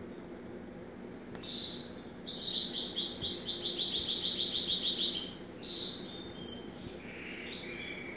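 A nestling bird begging while being hand-fed: a short high call, then a fast run of high chirps, about seven a second, for nearly three seconds, then a few shorter calls. A low steady hum lies underneath.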